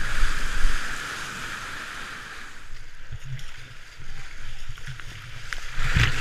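Rushing whitewater of the flood-swollen Shenandoah River heard from inside a kayak, with paddle strokes and water sloshing against the hull. Near the end, a loud splash as water washes over the bow.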